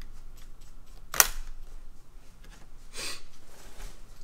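A large laptop being handled: a sharp plastic clack about a second in, then two short scraping sounds.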